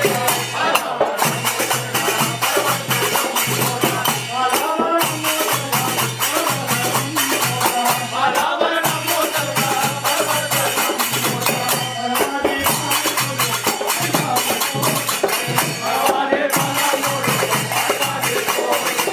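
Ram bhajan: men singing together over a steady, fast jingle of small brass hand cymbals struck in rhythm.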